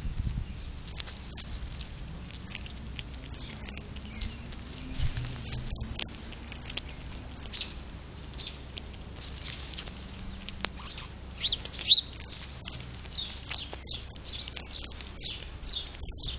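Eastern gray squirrel moving and eating close against a feeder camera's microphone: scattered light clicks, scratches and patter of paws and seed on the tray, with one sharper click about two-thirds of the way through. Brief high bird chirps sound in the background, more of them in the second half.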